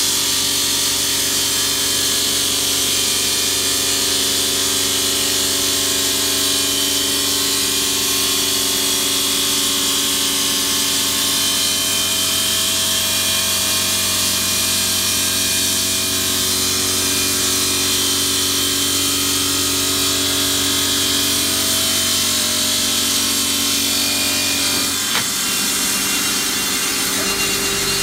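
Bridge saw's water-cooled blade cutting a stone slab, a steady, loud hiss over the hum of the saw motor. About 25 seconds in there is a single click, and the low hum drops away.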